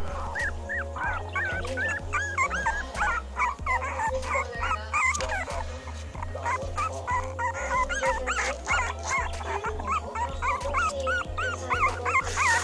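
Young puppies whimpering and squeaking in short, high, rising-and-falling cries, several a second and overlapping, over background music with a low bass line.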